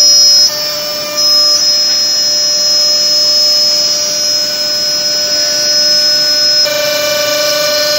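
Six-sided CNC panel drilling machine running: a steady high whine from its drilling spindles, cutting out for about a second near the start and stopping near the end, over the hiss of the dust extraction.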